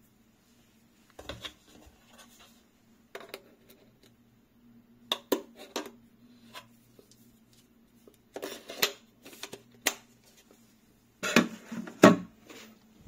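Small metal parts and tools clicking and clinking as they are handled and set down on a desk, in short bursts every second or two, loudest near the end, over a faint steady hum.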